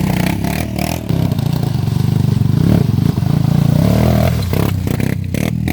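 Off-road vehicle engine running and revving, its pitch rising and falling, with clattering and scraping from the vehicle working over rough ground.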